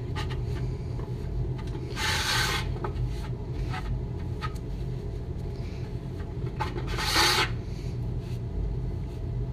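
A towel damp with lacquer thinner rubbed over a stainless steel wheel cover, wiping excess trim-black paint off the raised parts. Two short swishing wipes stand out, about two and seven seconds in, over a steady low hum.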